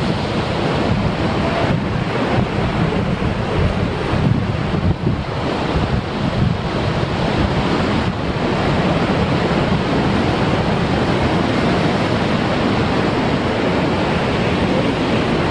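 Heavy surf breaking on a rocky shore and washing over a rock ledge into a tide pool: a loud, steady rush of churning water.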